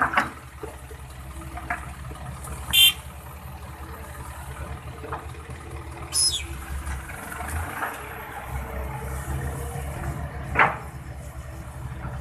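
Komatsu PC200LC excavator's diesel engine running steadily, with a few sharp metallic clanks standing out, the loudest about three seconds in.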